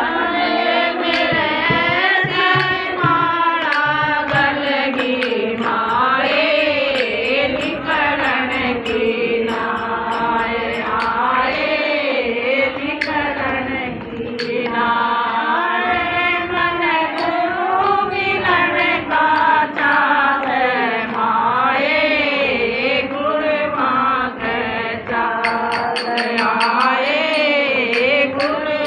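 Group of women singing a Hindi devotional guru bhajan together in unison, with a dholak drum and hand-clapping keeping the beat.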